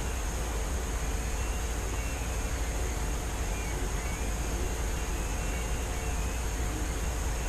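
Steady low hum with an even hiss over it: constant background room noise from machinery such as a fan, with no distinct events.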